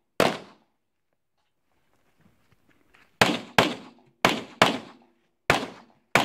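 Pistol shots: a single shot, then after a pause of about three seconds six more in quick succession, mostly in close pairs.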